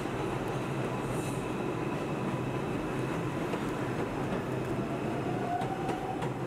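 Subway train running through the station: a steady rumble with faint, thin whining tones above it. The sound changes abruptly just before the end.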